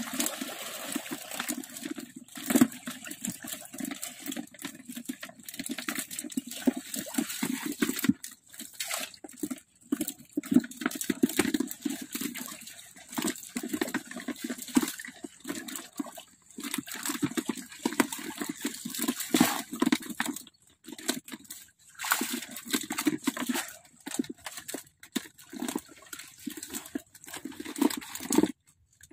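Shallow water splashing and sloshing in irregular bursts as a hand landing net scoops fish out of a netting fish trap, with a few brief sudden breaks.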